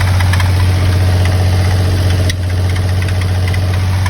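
1991 Mitsubishi 3000GT VR4's twin-turbo V6 idling steadily, with light irregular ticking over the low hum.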